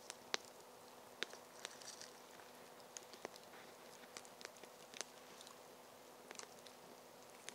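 Faint, scattered small clicks and crackles, uneven and about one or two a second, from hands handling something small.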